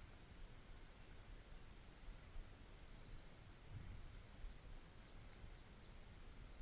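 Near silence with a faint low outdoor rumble; from about two seconds in, a small bird gives faint runs of short, high chirps.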